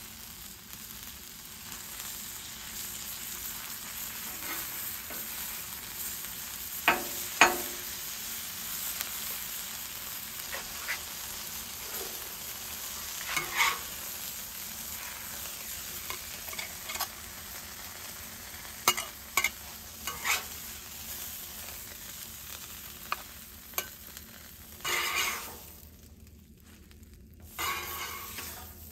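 Curly dock stalks sizzling in butter on a hot flat-top griddle, with a metal spatula scraping and clicking sharply against the griddle every few seconds as the stalks are turned and lifted off onto a plate. The sizzle dies down near the end.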